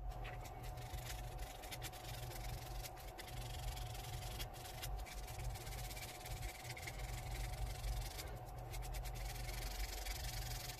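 Cast resin lure part being hand-sanded with a small piece of sandpaper: quick, irregular scratchy rubbing strokes, over a steady background hum.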